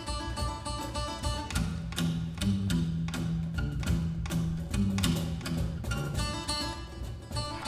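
Live instrumental music led by an acoustic guitar, with an accompanying part. From about a second and a half in until about six seconds, sharp strokes sound over low bass notes; before and after, the notes are held more steadily.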